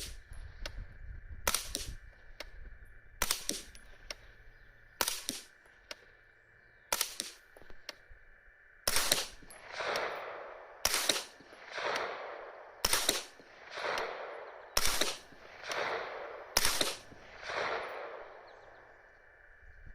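Suppressed 9mm AR-9 short-barreled rifle firing single shots one to two seconds apart. The first five or so are short, sharp reports; from about nine seconds in, each shot is followed by a longer ringing tail.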